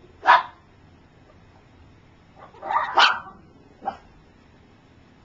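Dog barking a few short times: one sharp bark near the start, two more close together about three seconds in, and a quieter one just after.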